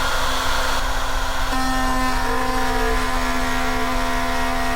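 Router spinning a solid carbide spiral upcut bit on a horizontal router table, running with a steady whine; about a second and a half in the sound changes and more pitches join as the bit cuts the cheek of a tenon.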